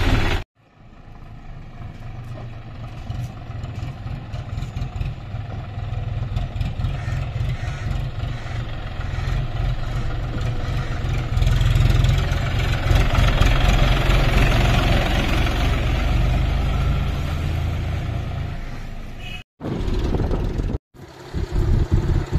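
John Deere 5050D tractor's three-cylinder diesel engine running under load as it pulls a trailer loaded with mud. It is a steady low rumble that grows louder over the first dozen seconds and then holds, cutting out briefly twice near the end.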